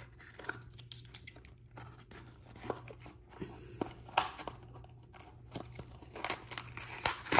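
Small cardboard blind box being handled and torn open by hand: faint, scattered scraping and tearing of cardboard, with sharper crackles about four seconds in and again near the end.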